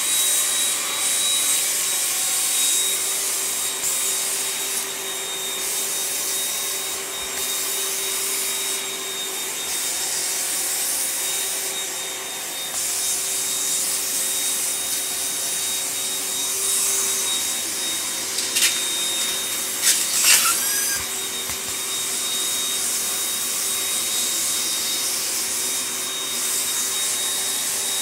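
Vacuum cleaner running with a steady hiss and whine, its pipe rubbing and knocking on a wooden floor as a dog worries at it. A few sharp, loud knocks come about two-thirds of the way through.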